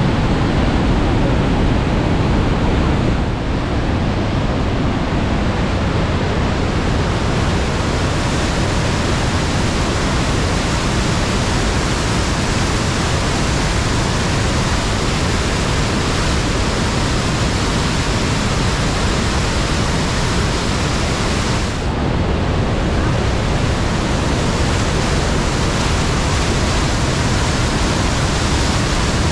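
Steady, loud rushing of the water of Niagara Falls heard up close, an even noise with no let-up.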